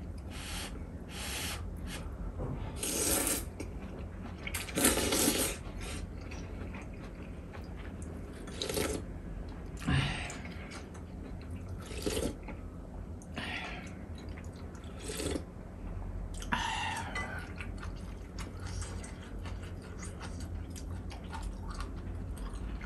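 A person slurping jjamppong noodles: about ten separate wet slurps, the two longest about three and five seconds in.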